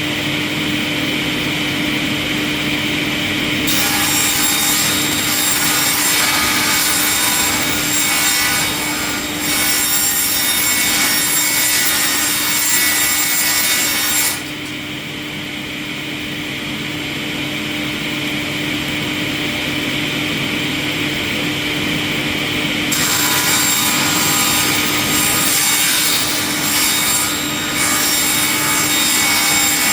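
Industrial wood chipper running with a steady hum. For two long stretches, about 4 s in and again about 23 s in, it makes a loud, harsh grinding as logs are fed through and chipped, with the hum alone between them.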